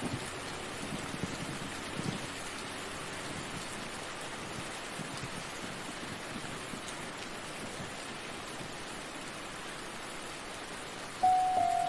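Steady rain falling, an even hiss of drops. About eleven seconds in, music begins with sustained notes over the rain.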